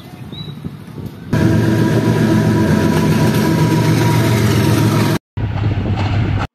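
Pakistan Railways GEU-40 diesel-electric locomotive passing close by, its engine running loud and steady; it cuts in suddenly about a second in, after quieter ambience with a few bird chirps. It breaks off for a moment near the end, then a train's diesel engine carries on loudly until it stops abruptly.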